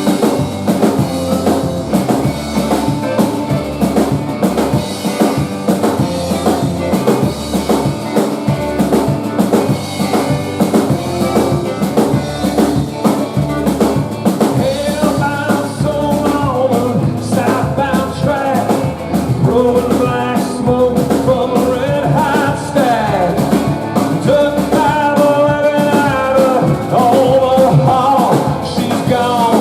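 Rock band playing live at full volume: drum kit keeping a steady beat under guitars and bass, with a singer's voice coming in about halfway through.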